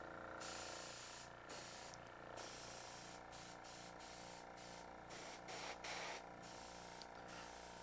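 Air hissing from an airbrush, broken off briefly again and again as its trigger is pressed and released, over the steady hum of a small MasterCraft airbrush compressor running.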